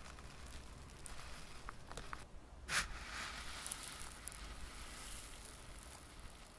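Slime being handled, giving off faint crackling and squishing with scattered small ticks, and one sharp click about three seconds in.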